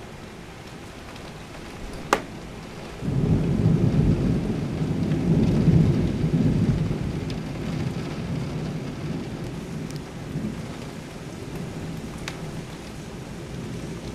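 Thunder: a sharp crack about two seconds in, then about a second later a loud low rumble breaks out, peaks and slowly dies away, over steady heavy rain.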